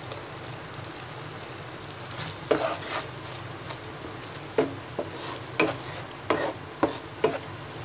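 A spatula stirring a thick sauce in a hot pan over a steady sizzle. From about two and a half seconds in it scrapes and knocks against the pan about half a dozen times.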